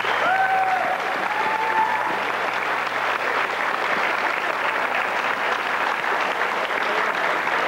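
Audience applauding steadily, with a few voices calling out in the first couple of seconds.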